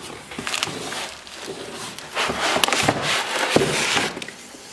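Cardboard shipping box being opened and handled: flaps scraping and rubbing, with sharp clicks and knocks as the box is shifted about, loudest in the middle couple of seconds.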